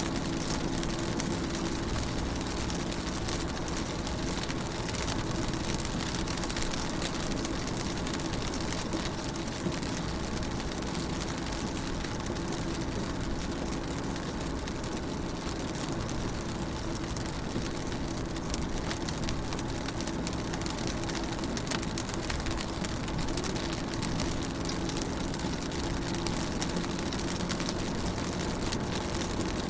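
Rain pattering on a car's windows, heard from inside the car: a steady fine patter of drops over a constant low hum.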